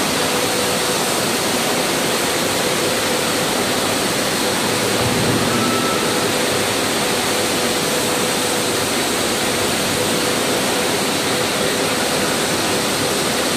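Steady loud rushing noise of stone-slab processing machinery, with a faint steady hum and a high steady whine running through it.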